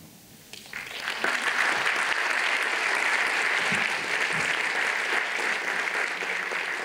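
Audience applauding after a talk, starting about a second in and continuing steadily.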